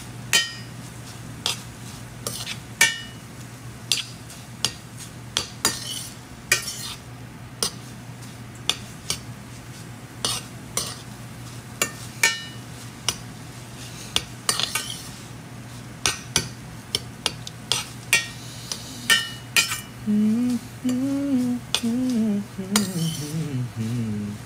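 A utensil stirring a pan of tuna, vegetables and chicken breast, with frequent scraping clicks and taps against the pan over a faint sizzle as the moisture cooks off.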